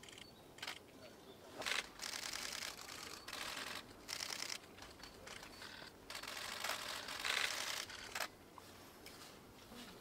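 Camera shutters firing in rapid continuous-shooting bursts: about eight short strings of quick clicks, some lasting up to half a second.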